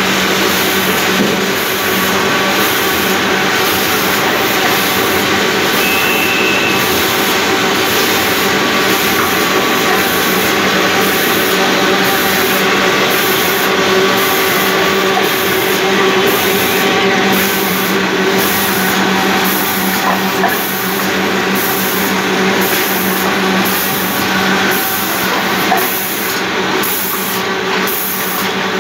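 SWAFM 1050 automatic thermal film laminating machine running: a steady mechanical hum and whirr, with a high pulsing sound repeating about once a second.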